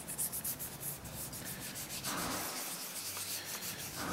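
Hands rubbing and smoothing a spray-glued paper template down onto a plastic blank: a run of quick brushing strokes, then heavier rubbing from about halfway.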